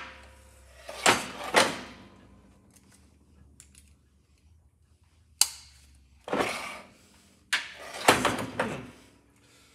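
Metal tools and parts being handled at a workbench: a few separate clanks and scrapes with quiet gaps between them.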